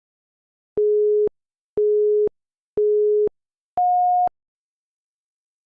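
Electronic countdown-timer beeps: three short tones at one pitch, a second apart, then a fourth, higher tone marking the end of the countdown.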